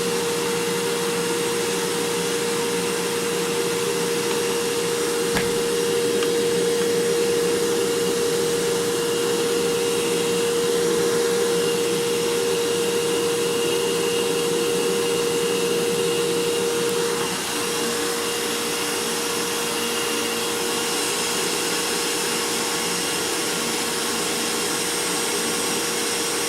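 Vacuum cleaner running steadily in another room: a constant whooshing noise with a steady motor whine, and a single click about five seconds in.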